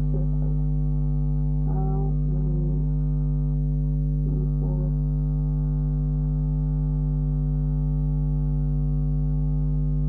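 Loud, steady electrical mains hum, a low buzz that never changes, with a woman's voice murmuring briefly twice, about two and four and a half seconds in.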